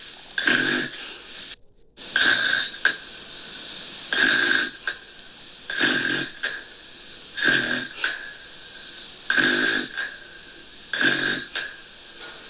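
Gentle snoring: repeated breathy snores with a low rattling buzz, about one every two seconds, with a brief cut to silence about two seconds in.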